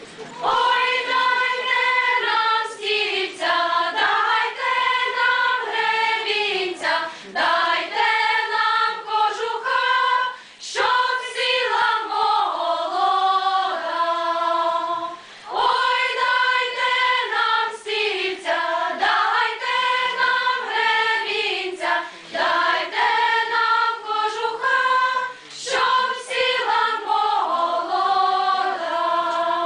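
A women's choir singing a Ukrainian folk wedding song, in long phrases of held, gliding notes with short breaks between them.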